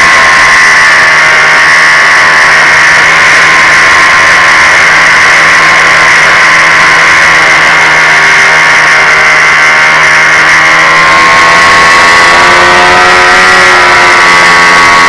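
Sunnysky brushless motor and propeller of an FPV fixed-wing RC plane heard from the onboard camera: a loud, steady whine over a hiss, its pitch sagging a little mid-way and climbing again near the end.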